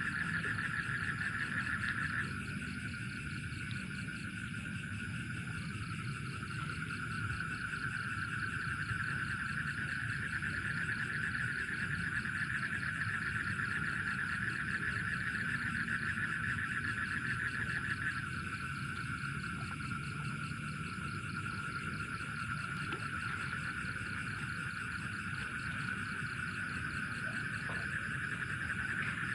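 Night chorus of frogs and insects: a steady, dense trilling that weakens about two seconds in and again past the middle, then fills back in.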